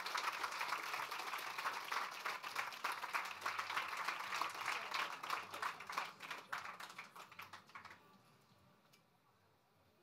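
Audience applauding: dense clapping that thins to scattered single claps and stops about eight seconds in.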